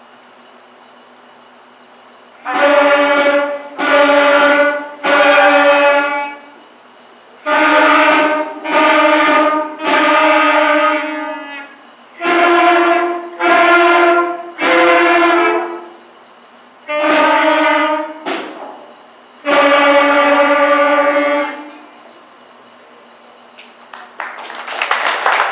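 A beginning school band of clarinets and saxophones playing a simple tune together: four short phrases of three held notes each, with pauses between, the last note held longest. Applause breaks out near the end.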